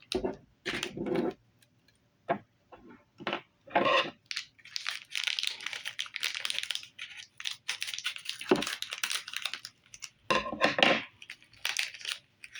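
Plastic toy packaging being torn open and crinkled by hand: an irregular run of rustles, crackles and sharp clicks, busiest in the middle.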